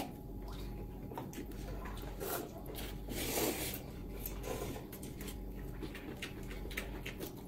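Two people slurping and chewing instant noodles, with many small wet smacks and clicks. A longer, louder slurp comes about three seconds in.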